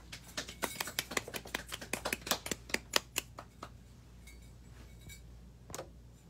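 A few people clapping their hands: quick, uneven claps for about three and a half seconds, then dying away, with a last clap or two near the end.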